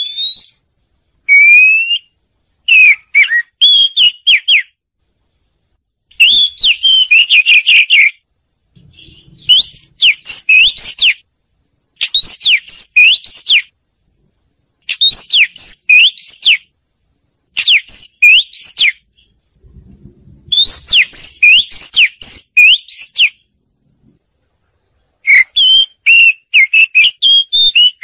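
Oriental magpie-robin singing: loud phrases of quick whistled notes that rise and fall, each lasting one to two seconds, with short pauses between phrases.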